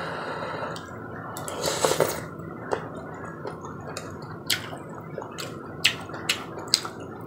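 A person eating soft rice porridge off a spoon close to the microphone: wet mouth sounds, lip smacks and a string of short sharp clicks, with the spoon scooping in the bowl.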